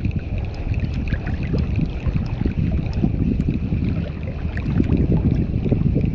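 Wind and water noise on the microphone: a continuous, uneven low rumble that swells and fades in gusts.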